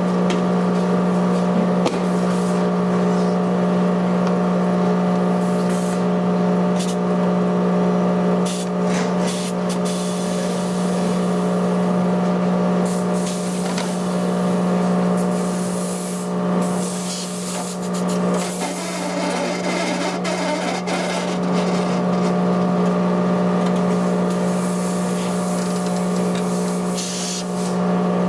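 Tyre-shop machinery running with a steady electric-motor hum that holds one pitch, with occasional clicks and scraping.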